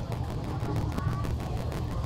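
Busy street noise: a steady low rumble of traffic with faint voices mixed in.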